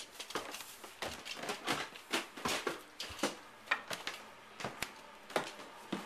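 Footsteps climbing wooden stairs: a quick, uneven run of knocks and thuds, about three a second.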